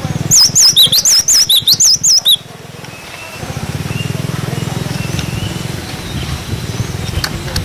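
Cinereous tit (glatik batu) singing a quick run of repeated whistled 'wucit' notes for about two seconds, then only faint scattered chirps over a steady low hum.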